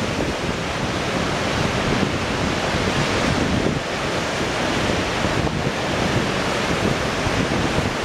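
Storm waves breaking in a steady rush of surf, with wind buffeting the microphone.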